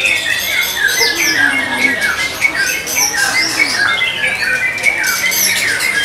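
Many white-rumped shamas singing at once: a dense, continuous tangle of whistles, chirps and sliding notes, with no single song standing clear.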